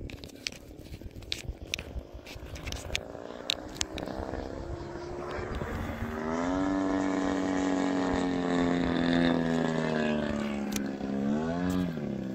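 Engine of a radio-controlled Extreme Flight Laser aerobatic model airplane in flight, growing louder over the first half and then holding a steady note. Near the end its pitch dips sharply and rises again.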